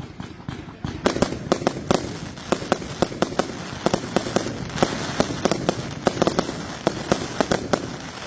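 Firework batteries firing a rapid string of sharp bangs, several a second, over a continuous crackle.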